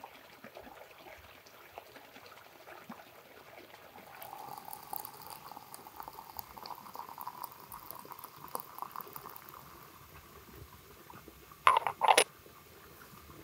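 Water pouring from a brass samovar tap into a porcelain teapot, rising slightly in pitch as the pot fills. Near the end come two sharp clinks as the porcelain lid is set on the teapot.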